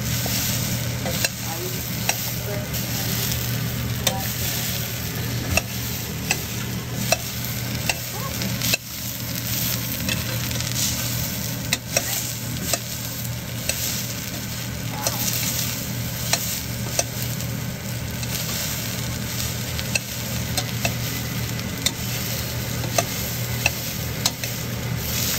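Sprouted mung beans sizzling as they fry in a stainless steel saucepan while a metal spoon stirs them, with irregular clicks and scrapes of the spoon against the pan. A low steady hum runs underneath.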